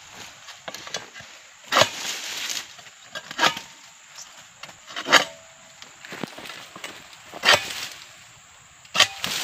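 A freshly sharpened egrek (pole-mounted sickle knife) cutting through young oil palm frond bases in five sharp, crunching strokes, about one every second and a half.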